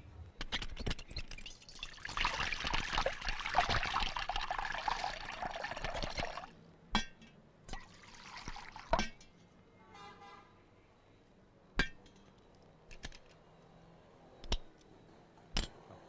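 Kitchen tap running water into a stainless-steel sink or pot for about four seconds, then a few sharp clinks and knocks of steel utensils and vessels being handled.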